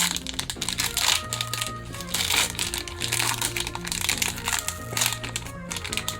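Crinkling of a Magic: The Gathering collector booster pack's foil wrapper as it is opened, with many quick irregular crackles, over background music with held bass notes.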